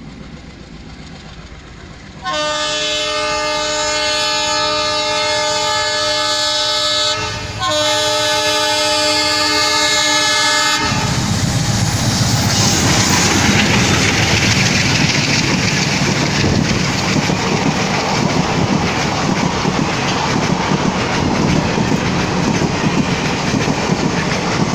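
Twin ALCO diesel locomotives of Indian Railways sound their horn in two long blasts as they approach: the first lasts about five seconds, then a short break, then a second of about three seconds. Then the locomotives and their passenger coaches run past at speed, a loud, steady rush of engine and wheel noise.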